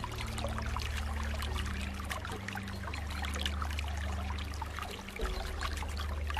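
Flowing water trickling and pouring, with many small gurgles and splashes over a steady low rumble.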